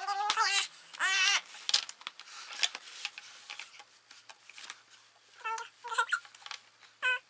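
Jigsaw puzzle pieces clicking and tapping against the puzzle board as a young child handles and fits them, with a few short high-pitched vocal sounds from the child near the start and again later on.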